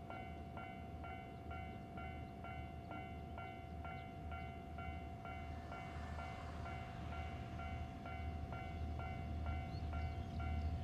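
Level-crossing warning bell ringing about twice a second under the low rumble of a DD51 diesel-hydraulic locomotive hauling a freight train, the rumble growing louder as it approaches near the end.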